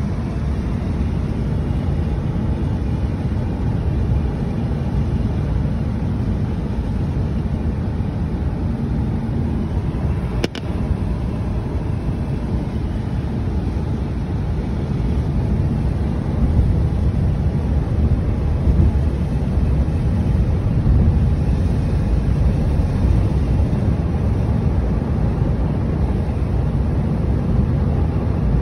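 Steady low rumble of a moving car heard from inside the cabin: tyre and engine noise at driving speed. It grows a little louder about halfway through, with one brief click about ten seconds in.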